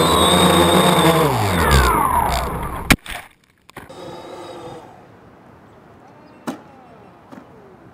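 Quadcopter motors and propellers whining steadily, then winding down in pitch as the power is cut mid-flight, ending in a sharp crack of impact about three seconds in. After that only faint outdoor sound, with one short knock later on.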